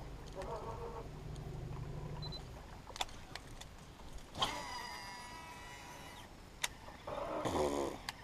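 A lure cast from a spinning or casting rod: a sharp swish, then the reel spool whirring with a falling pitch as the line pays out and the spool slows. Near the end comes a second short whir that also falls in pitch, and a low hum runs through the first couple of seconds.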